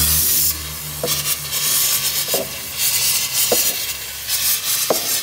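Aerosol spray can hissing in several short bursts as it is sprayed through an extension tube into the engine bay. A low hum runs under the first burst.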